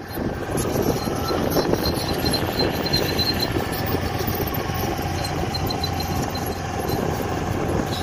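M1 Abrams tank driving, its gas-turbine engine running steadily, with a faint rapid ticking high above the engine noise.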